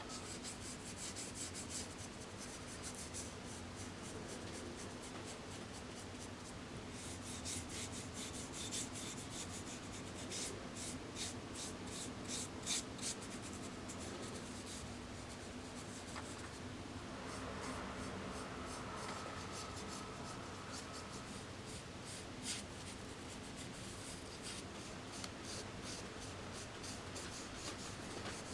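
Quick rubbing and scraping strokes of hand work on a small model part, coming in spells, over a steady low hum.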